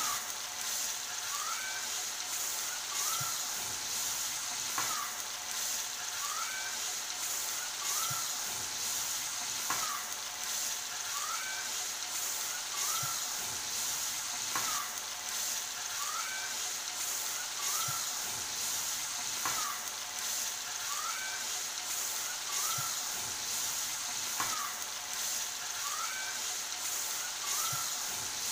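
Hilsa fish pieces sizzling steadily as they fry in hot oil and onion paste in a karahi, with a spatula stirring and turning them.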